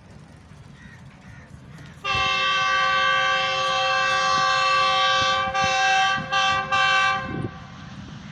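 Horn of a Pakistan Railways GEU-20 diesel locomotive sounding a several-note chord: one long blast of about three seconds, then three short blasts.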